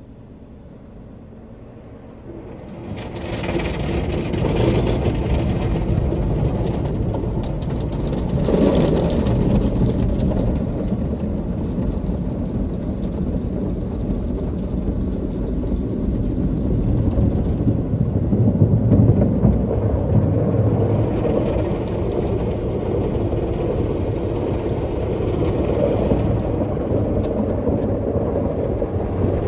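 Automatic car wash's rotating brushes and water spray working over the car, heard from inside the cabin: a loud, rough rushing and churning that starts suddenly about two and a half seconds in and keeps going, swelling again near the ten-second mark.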